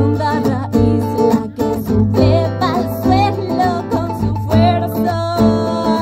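Live band music: a strummed acoustic guitar and an electric guitar melody over a cajón beat, with a steady low bass note under it.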